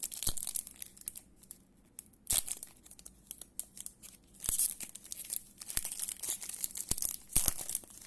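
A trading-card pack's foil wrapper being torn open and crinkled: a run of irregular rips and crackles broken by a few sharp clicks.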